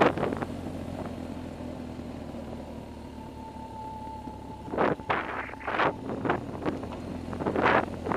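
BMW R1200GS boxer-twin engine running low and steady as the motorcycle rolls slowly along a dirt road. A faint steady whine comes in about three seconds in, and from about five seconds in short gusts of wind buffet the camera microphone.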